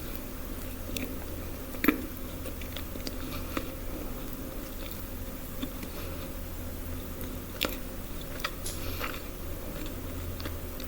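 Close-miked eating: chewing with scattered sharp crunchy bites, the sharpest about two seconds in, over a steady low hum.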